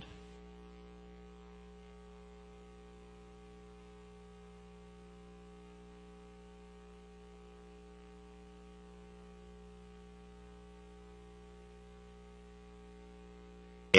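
Steady electrical hum: a stack of even, unchanging overtones and nothing else.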